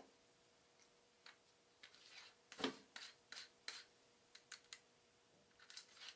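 Faint, scattered clicks and light taps of metal parts being handled as a steel shaft is fitted into a bearing casting on the horn plate, about seven in all, the loudest about two and a half seconds in.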